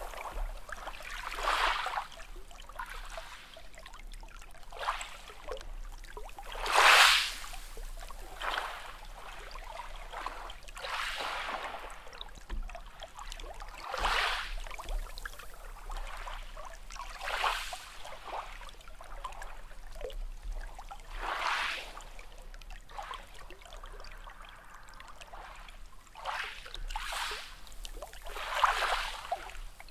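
Small sea waves washing in and lapping at the shore over and over, a rush of surf every one to three seconds, the loudest about seven seconds in.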